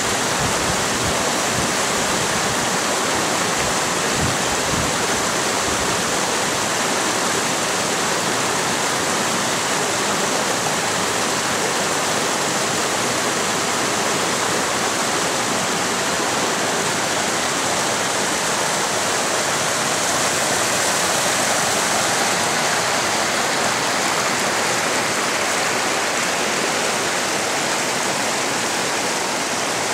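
Mountain creek water rushing steadily over boulders and cobbles: a constant, even hiss of tumbling water.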